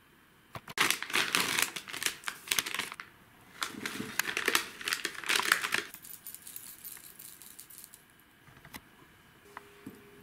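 Plastic snack packaging crinkling in two bursts of about two seconds each, followed by a few light ticks and taps.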